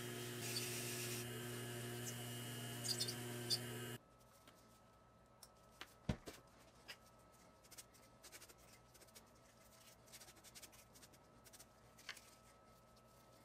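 A small lathe's motor hums steadily, spinning a foam buffing pad while a bar of polishing compound is rubbed against it, with a couple of short scraping rubs. About four seconds in, the hum stops abruptly and only scattered faint clicks remain.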